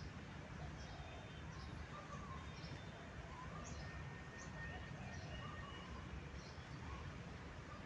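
Small birds chirping in short, high notes scattered every second or so over a steady low rumble.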